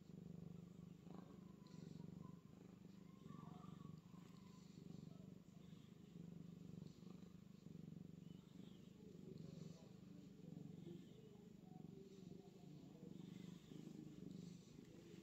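Colourpoint cat purring steadily while being stroked: a low, continuous purr that swells and eases every second or two.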